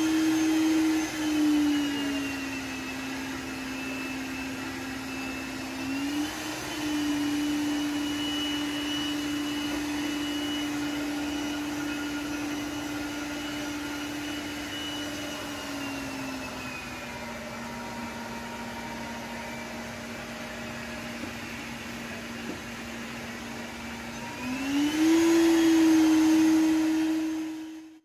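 Suction motor of an iLife B5 Max robot vacuum running with a steady hum and a fainter high whine. Its pitch and loudness step down about a second in, come back up around six seconds, drop again past the middle and rise near the end as the suction level is changed from the app's slider.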